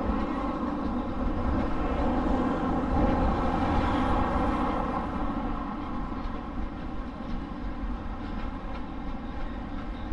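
A passing motor vehicle's engine drone with a low rumble, swelling a few seconds in and then slowly fading.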